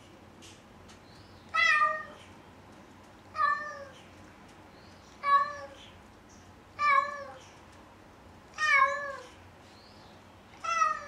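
A cat meowing six times, about every two seconds; each meow is drawn out and falls in pitch at the end.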